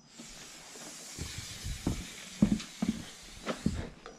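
Steel tape measure being run out across a plywood board: a steady hiss for about four seconds that stops abruptly, with a handful of dull knocks in its second half.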